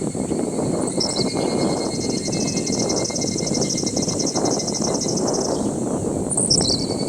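Birds and insects calling in tropical parkland. A rapid, high, evenly pulsed trill lasts about four and a half seconds, with short high chirps just before it and again near the end. Steady thin high insect tones and a low rumble of background noise run underneath.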